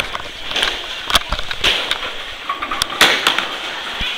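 Bowling alley noise: a run of sharp clacks and thuds from balls and pins, the loudest about three seconds in, over a steady background hubbub.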